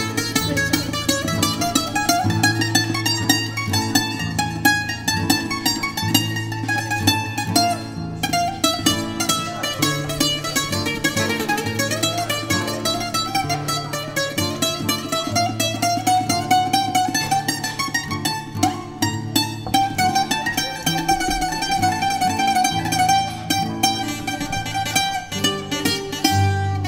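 Bouzouki playing an improvised minore taxim: quick runs of plucked notes over a steady chordal accompaniment whose chords change every couple of seconds.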